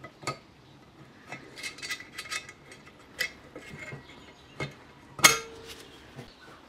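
Metal clicks and clinks of a valve spring and spring compressor being worked onto a valve stem in a small tiller engine. A sharp metallic clack about five seconds in, the loudest, rings briefly.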